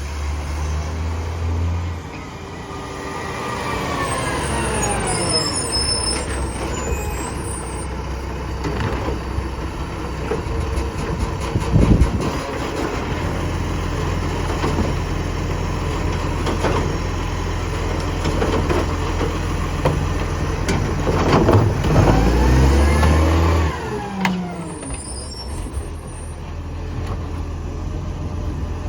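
Garbage truck engine running with an exhaust leak. Its engine note sweeps up and falls away twice as the truck moves, with a sharp loud burst about midway.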